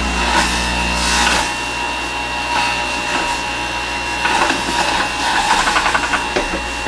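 Electric centrifugal juicer motor running and grinding produce as it is pressed down the feed chute with the pusher. A steady hum for the first second and a half gives way to a rough grinding and rubbing that rattles rapidly near the end.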